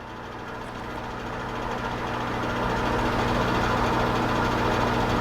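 Steady background fan noise with a low hum from a small room heater, growing louder over the first three seconds and then holding steady.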